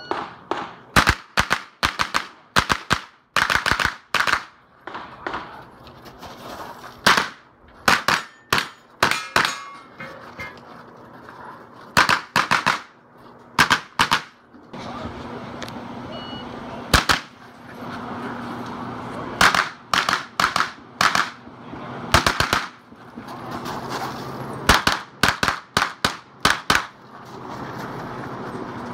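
Pistol-caliber carbine fired in fast strings: quick pairs and rapid bursts of shots, with short pauses between strings while the shooter moves between positions.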